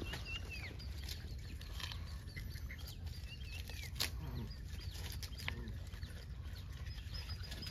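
Outdoor ambience: small birds chirping now and then over a steady low rumble, with a few sharp clicks, the loudest about four seconds in.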